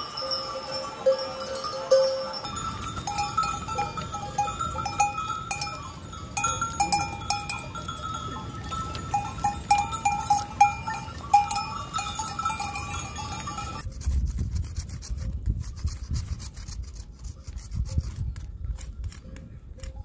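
Bells on a herd of goats clanking unevenly as the animals move over rocks, with hooves clicking on stone. About two-thirds of the way through the bells stop, and close clicking and scraping from goats licking a rock takes over, with wind rumbling on the microphone.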